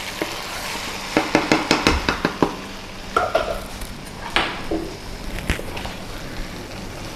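Wooden spatula and metal spoon knocking and scraping against a nonstick wok as beef rendang is stirred and scooped out of it: a quick run of about eight knocks about a second in, then a few scattered clinks.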